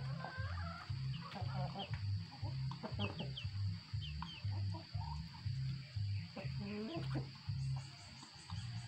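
Backyard chickens clucking and giving short high peeps while pecking at feed on concrete, with scattered light pecking clicks. A low pulsing sound runs underneath.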